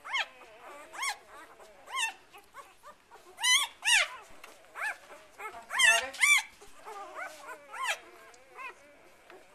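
Newborn golden retriever × white German shepherd puppies squeaking and whimpering: short high cries that rise and fall, about one a second from several pups, loudest around four and six seconds in. Their eyes are not yet open, and the owners take these calls as the pups telling each other where they are.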